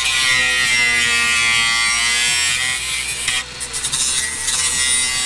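A power grinder running on sheet metal: a high, steady whine with hiss that turns rougher and more ragged about two-thirds through. Background music plays underneath.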